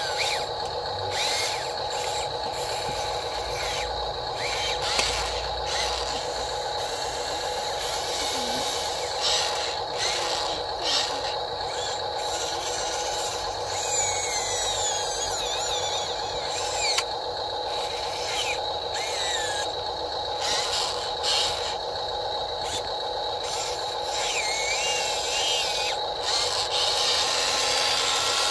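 Radio-controlled tracked excavator's electric motors whining steadily as it works, with repeated scraping and clattering of soil as the bucket digs and dumps.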